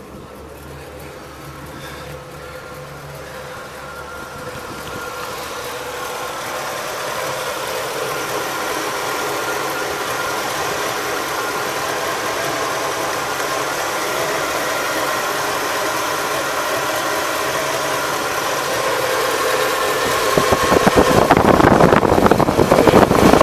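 1985 Oldsmobile's 5.0-litre V8 idling with no belt squeal, now that the power steering belt is off and only the alternator belt is driven. It grows steadily louder, and a louder rushing noise comes in near the end.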